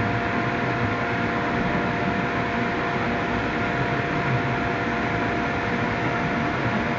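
Electric air blower that keeps an inflatable bounce house inflated, running steadily: an even rushing noise with two steady hums. The higher hum drops out near the end.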